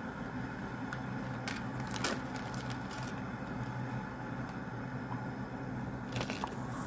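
Plastic and paper packets crinkling and rustling as they are handled, in two bursts: one from about one and a half to three seconds in, and a shorter one near the end. A steady low hum runs underneath.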